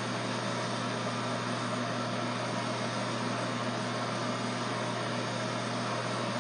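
Corded electric hair clippers running with a steady, even buzz as they are passed over the scalp to take off the last short hair.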